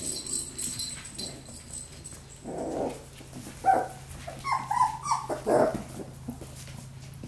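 Four-week-old labradoodle puppies yipping and whining in play. The calls come in short high bursts: one sharp, loud yip about three and a half seconds in, then a quick cluster of yips a second or two later.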